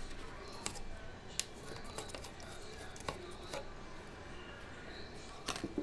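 Sparse light clicks and taps of a plastic paint-stripper bottle being handled and its cap twisted off, with a louder cluster of clicks near the end.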